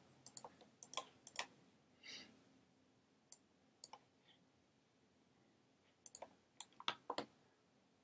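Faint, irregular clicks from a computer pointing device being clicked, a few around the first second and a cluster around six to seven seconds in.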